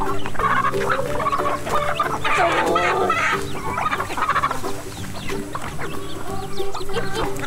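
Flock of chickens clucking as they crowd in to feed, with a longer wavering call a little past two seconds in.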